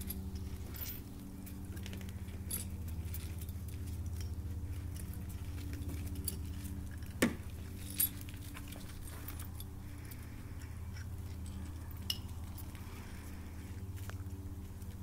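Several puppies playing on concrete: scattered clicks, light patter and small metallic clinks, with two sharper clicks a little past the middle, over a steady low mechanical hum.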